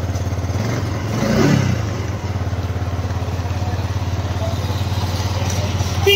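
Yamaha R15's single-cylinder four-stroke engine idling, blipped once by the throttle about a second in; the bike has water in its petrol tank. A short sharp sound near the end.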